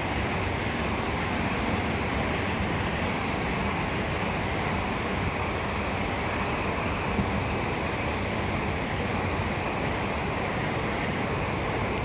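Steady, even wash of background noise in a large covered market hall, with no single clear source standing out.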